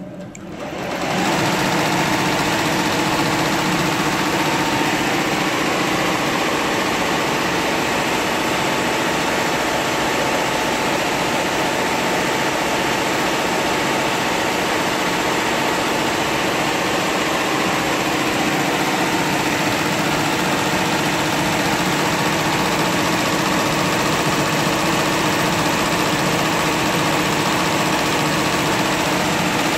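Tajima multi-head embroidery machine stitching at 900 rpm: a steady mechanical clatter of the needle bars and drive. It swells up over the first second, then runs evenly.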